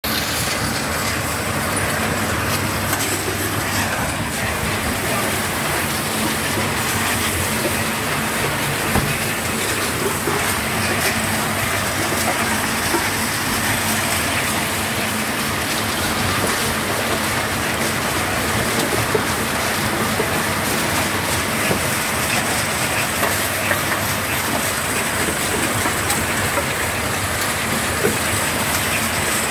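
Stone-crusher yard machinery running: a wheeled belt conveyor and crusher plant making a steady, dense rattling clatter, with scattered sharp clicks throughout.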